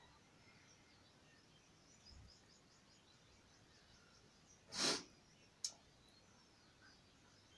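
A single short, sharp breath forced out through the nose about five seconds in, as a cord is drawn through the nasal passage, followed a moment later by a brief click.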